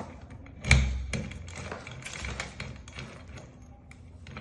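Metal clicks and taps from handling a Kwikset SmartKey lock and its key during rekeying, with one sharp knock and low thud about a second in.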